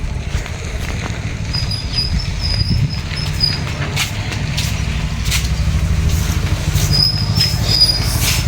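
Motor vehicle engine running steadily, with a fast even pulse low in pitch. A few short high chirps sound above it.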